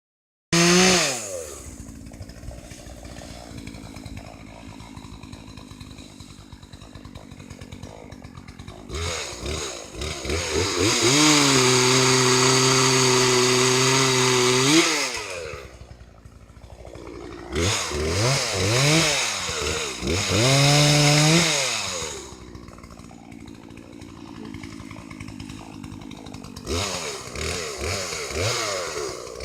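Chainsaw idling, then revved to full throttle and held there for about five seconds. It drops back, gives a run of short throttle blips, settles to idle again and revs up once more near the end.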